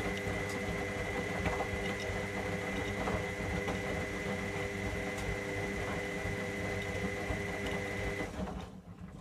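Electra AWF683 washing machine running mid-cycle, a steady mechanical hum with a constant high whine, which cuts out about eight seconds in.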